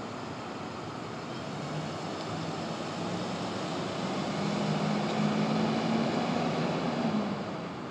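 A passing vehicle's engine: a low drone that rises a little in pitch, swells to its loudest about five to six seconds in, then fades away.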